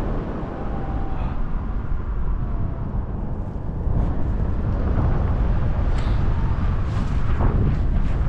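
Airflow buffeting the camera microphone in paraglider flight: a loud, steady low rumble of wind noise, with a few brief gusty swells in the second half.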